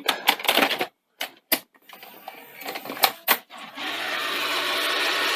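Sony SL-C6 Betamax deck taking a cassette: a few sharp clicks and clunks, then from about four seconds in the tape-loading mechanism runs with a steady, rising gear noise. The sound comes from the deck's worn loading gears.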